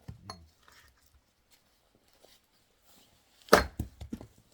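An axe strikes and splits an oak firewood log: a loud, sharp chop about three and a half seconds in, followed by a few quick knocks of wood. A lighter knock comes just after the start.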